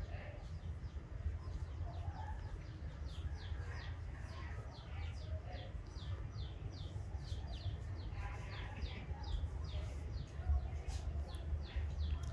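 Small birds chirping over and over in short falling notes, two or three a second, over a steady low rumble.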